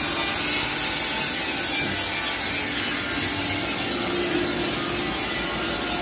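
Carpathian SMSA 110 horizontal band sawmill running, its band blade sawing lengthwise through a squared log with a steady, even sawing noise.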